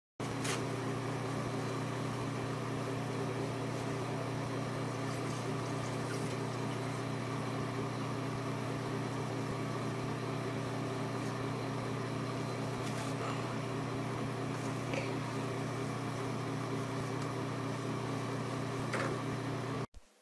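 A steady low mechanical hum, with a few faint clicks and rustles over it; it cuts off suddenly near the end.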